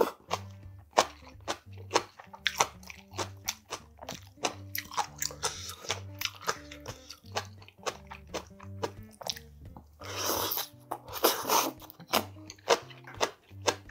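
Close-miked eating of spicy steamed monkfish (agujjim): many sharp crunches of chewing, with two louder slurps about ten and eleven seconds in. Soft background music with a low bass line runs underneath.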